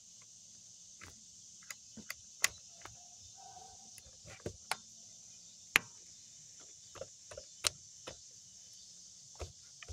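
Scattered sharp metallic clicks and taps as channel-lock pliers grip and work a spring hose clamp on a car's upper radiator hose, over a steady high chirring of crickets.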